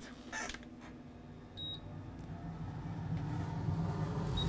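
Fan noise on an electronics rework bench, a hum and hiss that rises steadily over a few seconds and then holds. A short high electronic beep sounds about one and a half seconds in, and a briefer one near the end.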